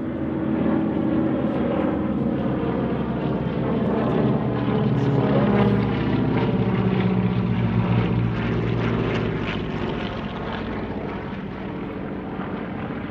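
Piston-engined warbirds flying past in formation: a Hawker Hurricane, a North American T-6 and a twin-engined Beech AT-11 Kansan. Their engines and propellers make a steady drone that swells to its loudest about halfway through, then fades as they pass.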